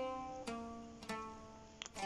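Soft background music: slow plucked-string notes, a new note about every half second, each ringing and fading.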